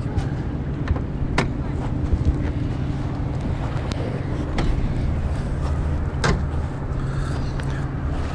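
A steady low engine-like hum, with a few sharp clicks and knocks, the clearest about a second and a half in and again about six seconds in.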